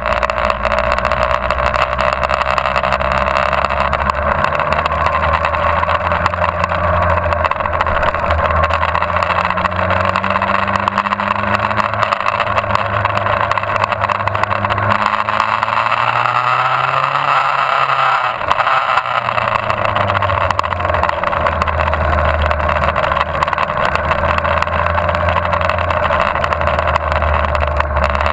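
Motorcycle engine running at road speed, heard from a camera mounted on the bike, under a steady rush of wind on the microphone. The engine note rises and falls, dropping away a little past halfway before picking up again.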